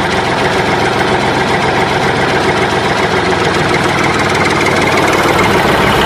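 Tractor engine running steadily, as a sound effect for a toy tractor driving.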